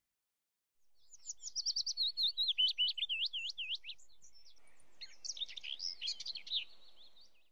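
A songbird singing a quick run of high, slurred whistled notes, about four a second, then after a short gap a second, choppier phrase.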